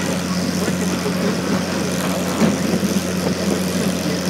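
Engine of a one-third-scale park train running steadily, a low, even drone with a light rattle over it.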